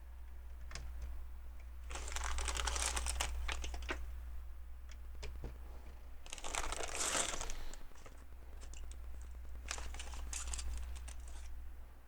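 Hands rummaging through small plastic LEGO pieces, a rustling clatter of many light clicks, in three bouts of a second or two each.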